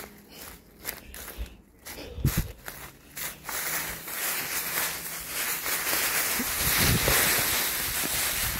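Footsteps on dry leaf litter on a wooded slope, then a rushing noise that builds from about three seconds in and stays loud to the end, with two dull thumps.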